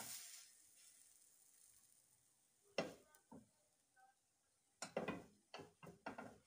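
A frying pan knocking sharply against the gas hob's grate as it is handled, once about three seconds in and then four or five knocks in quick succession near the end. A brief hiss as a pancake is flipped into the hot pan opens the stretch.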